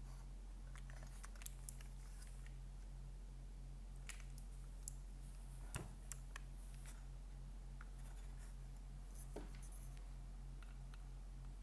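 Mechanical keyboard keystrokes on a Cycle 7 with an aluminium plate and no foam, fitted with lubed and filmed KS-X47 switches topped with Cherry Old Black housings. The presses come scattered and irregular, a few sharper clacks among lighter ones, over a steady low electrical hum.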